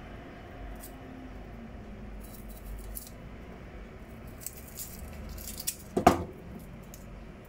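Faint scraping and crinkling of a knife and fingers peeling the papery skin off a small onion, with one sharp knock about six seconds in.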